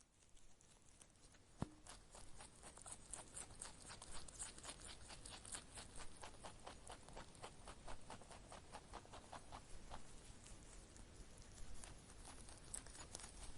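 Faint pattering of light taps or scratches, a few a second, uneven in rhythm.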